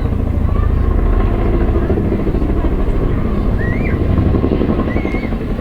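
Boeing CH-47 Chinook tandem-rotor helicopter flying a low display pass, its rotor blades beating in a fast, steady, loud throb.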